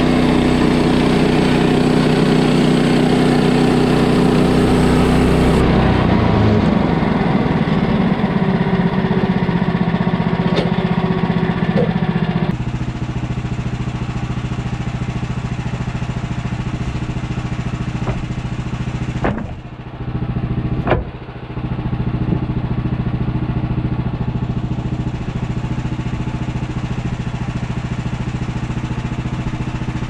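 An engine runs steadily, and its tone changes abruptly twice, about 5 and 12 seconds in. About two-thirds of the way through come two sharp knocks.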